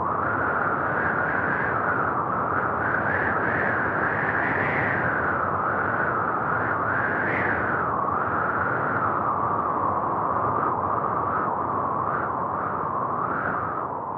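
Steady rushing of blown air, its hiss slowly drifting up and down in pitch.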